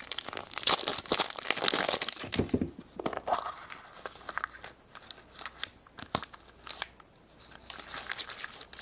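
Crinkling and tearing of a surprise egg's wrapper being opened by hand, dense for the first few seconds, then scattered small crackles and clicks with a short pause before more crinkling near the end.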